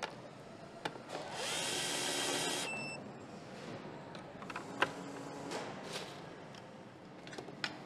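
Cordless drill-driver running once for about a second and a half, driving a fastener into a motorcycle part. After it come scattered sharp clicks and knocks of parts being handled and fitted.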